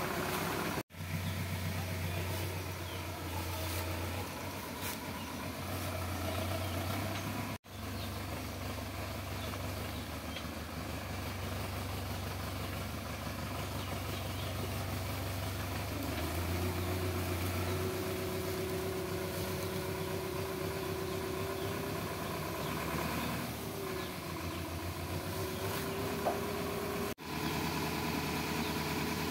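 Sonalika tractor's diesel engine running steadily while it pulls a loaded tipping trolley, with a higher steady whine coming in about halfway through. The sound breaks off for an instant three times.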